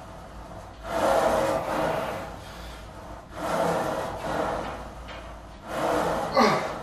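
Hard, rasping breaths from a lifter straining through Smith machine bench press reps, one long breath every two and a half seconds or so, with a short strained grunt that drops and rises in pitch near the end.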